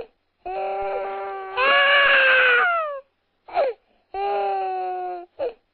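Baby crying: two long, steady wails with short gasping in-breaths between, the first breaking into a louder, higher cry about halfway through.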